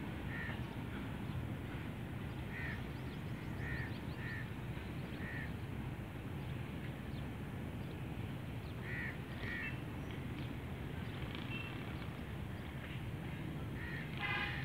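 Low steady rumble of a long coal freight train running away into the distance, with crows cawing in short calls, often in pairs, over it; one louder call comes near the end.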